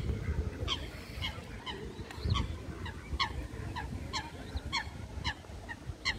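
Geese honking over and over, short calls coming about two a second.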